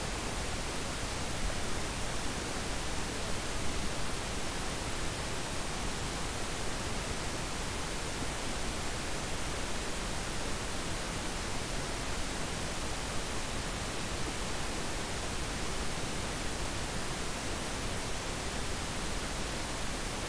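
Steady, even hiss with nothing else over it: the background noise of the microphone and recording chain.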